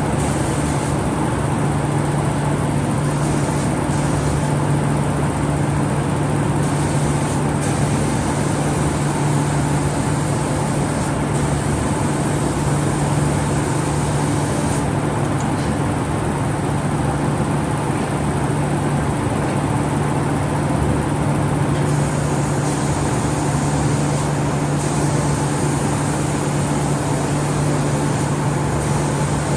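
Steady machinery noise of an automatic door spray-painting machine and its booth: a constant low hum under an even hiss that does not change.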